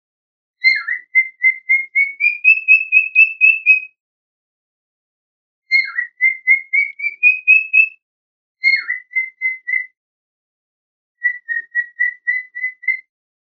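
Cockatiel whistling in four phrases of short, clear whistled notes. Each phrase opens with a quick downward-swooping note, then runs on at about four notes a second, climbing slightly in pitch.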